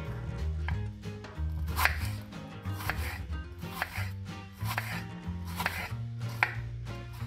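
Chef's knife slicing through a shallot onto a wooden cutting board: about six sharp strokes, roughly one a second, over background music.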